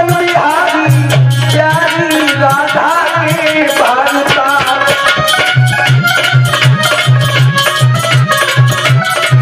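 Live devotional bhajan music: harmonium chords over a steady dholak drum beat, with a melody line that bends in pitch over the first few seconds.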